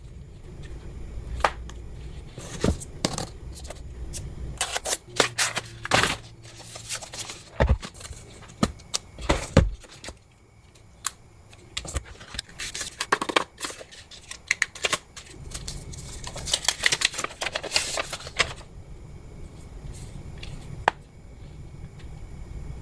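A Google Pixel 9 Pro Fold's box and packaging being handled during an unboxing: scattered sharp clicks and taps, with bursts of rustling from the cardboard and paper packing.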